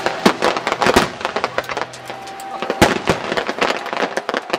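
Aerial fireworks exploding, a rapid run of crackling pops with one sharper, louder bang a little under halfway through.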